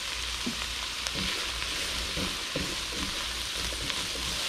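Sliced peppers, carrots, onion and mushrooms sizzling steadily in a hot skillet, with a spatula stirring through them near the end.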